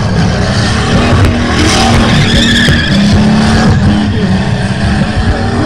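A car's engine is held at high revs while its tyres spin and screech in a smoky burnout slide. The engine gives a steady drone, with loud tyre squeal over it.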